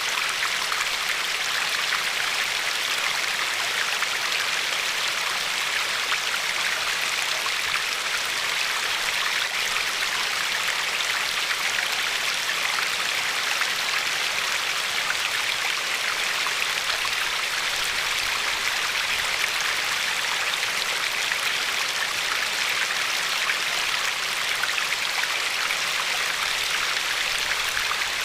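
A river flowing steadily over a pebble shore: a constant rushing of water with fine splashing.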